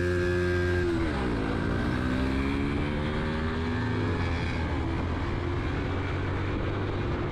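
Motorcycle engine on the move, with rushing wind noise. About a second in the engine note drops, then climbs steadily for a few seconds as the bike accelerates through the gear, and settles near the end.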